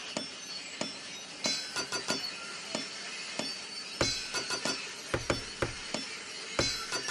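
Sound-art composition of clinking, glassy metallic strikes that come in clusters about every two and a half seconds. Deep thuds join the strikes from about four seconds in.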